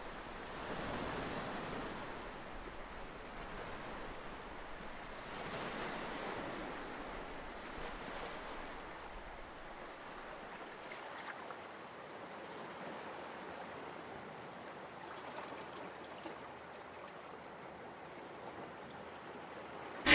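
Sea surf washing against rocky cliffs, a steady wash that swells about a second in and again around six seconds, then settles.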